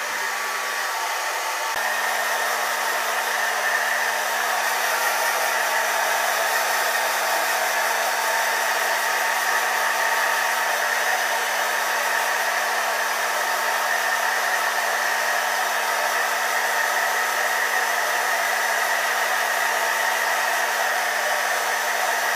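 Handheld hair dryer blowing steadily while damp hair is brushed through, a rush of air with a constant hum beneath it.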